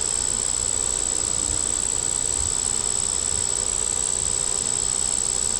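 Honey bees buzzing around an opened hive, under a steady, unbroken high-pitched insect trill.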